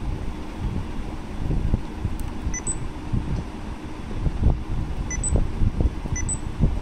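Low, rumbling handling noise with soft clicks and knocks as fingers turn the mode dial of a Fujifilm FinePix HS30EXR bridge camera. Faint, very short high pips sound in pairs three times.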